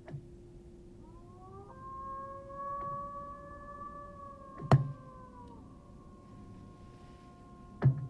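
Long held musical tones: a low steady note, then a brighter note with overtones that slides up slightly about a second in, holds for several seconds and gives way to fainter sustained tones. Three sharp clicks come through, the loudest midway.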